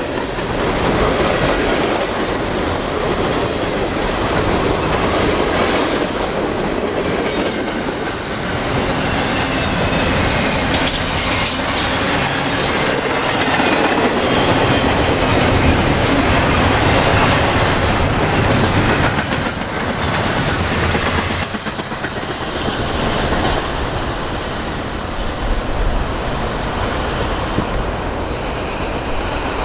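Freight trains rolling past on steel rails, the wheels clacking over rail joints in a steady, loud rumble that runs without a break.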